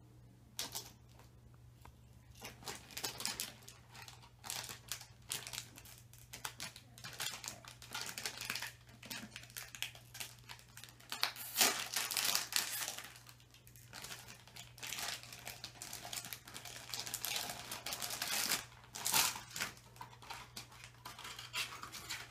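Toy packaging of paper and wrapper being crinkled and torn open by hand, in irregular bursts of rustling, loudest about halfway through and again near the end.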